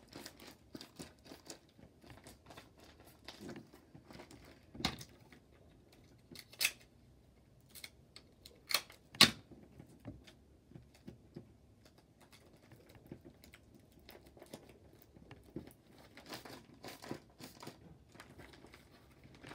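Paper and plastic crinkling as a homemade paper squishy stuffed with plastic shopping bags is handled and pressed, in many short crackles with a few sharper, louder ones, the loudest about nine seconds in.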